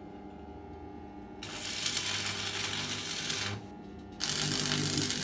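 Stick welding arc crackling as tack welds are laid on steel plate: two stretches of about two seconds each, the first starting about a second and a half in, with a short break between.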